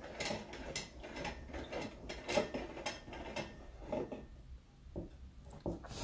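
Ryobi drill press table crank being turned by hand, its rack-and-pinion gearing giving a run of uneven mechanical clicks and rattles.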